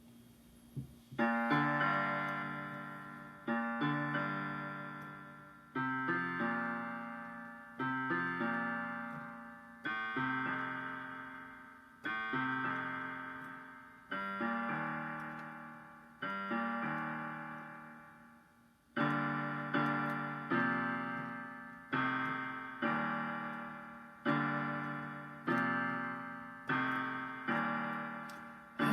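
Piano playing a slow introduction of chords, each struck and left to ring and fade away, one every one and a half to two seconds, the first about a second in.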